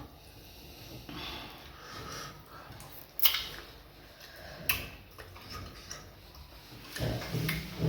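Eating at a table: quiet mouth and dish noises, with two sharp clicks about a second and a half apart near the middle, and a low hum near the end.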